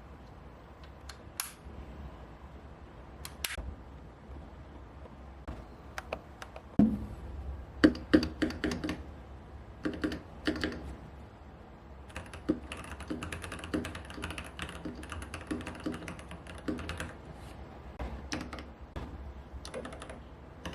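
Keychron V1 mechanical keyboard with brown tactile switches and double-shot PBT keycaps being typed on. A few single key presses come first, then a quick run of typing from about seven seconds in, then steady fast typing through the middle, and scattered presses again near the end.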